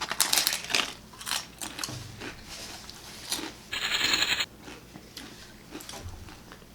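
Close-up biting and chewing of sopes, fried masa cakes piled with lettuce and toppings: a run of crisp, irregular crunches. A short, dense hissing burst comes a little under four seconds in.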